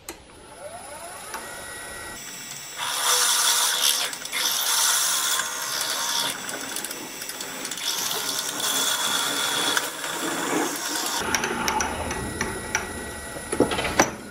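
A wood lathe spins up, then a twist drill bit held in the tailstock bores into the spinning ironbark blank. The drilling is a loud hiss in several pushes with brief pauses, boring the depth hole before hollowing.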